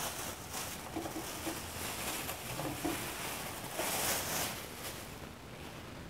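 Thin plastic bag rustling and crinkling as it is pulled off a fan motor, loudest about four seconds in and dying away near the end.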